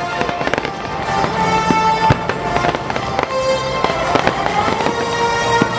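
Fireworks bursting and crackling, with music playing throughout; several sharp bangs stand out, the loudest about two seconds in.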